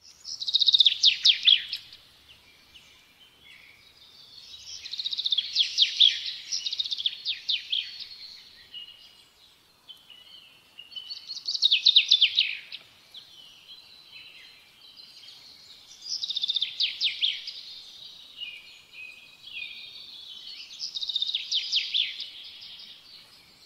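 Birdsong: five loud, fast trilling phrases a few seconds each, with quieter twittering in between.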